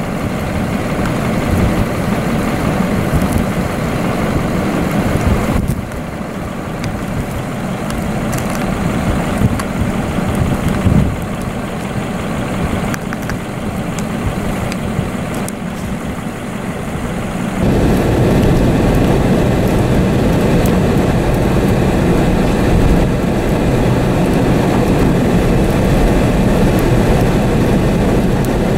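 Strong wind buffeting the microphone in a blizzard, a gusty rumble. About two-thirds of the way through it turns steadier and louder.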